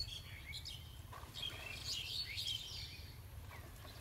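Small birds chirping and twittering, with a busy cluster of short calls around the middle, over a steady low rumble.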